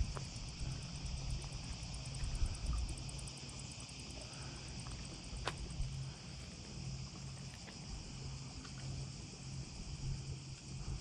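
Cicadas buzzing steadily, a high, finely pulsing drone, over a faint low intermittent hum.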